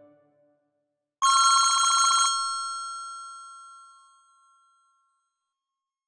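ZTE R225 mobile phone playing a ringtone in the style of an old telephone bell: one burst of rapid bell trilling about a second long, starting just over a second in, which then rings out and fades over a couple of seconds.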